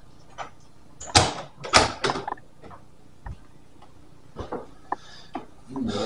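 Scattered knocks and clunks, with two louder bangs about a second in, half a second apart, and a few lighter clicks after.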